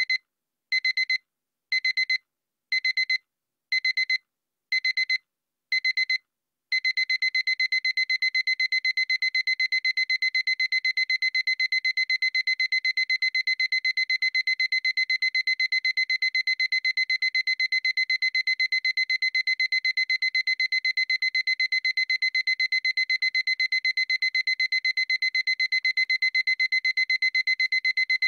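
Digital alarm clock going off with rapid, high-pitched electronic beeps. The beeps come in short groups about once a second at first, then about seven seconds in switch to a continuous fast beeping.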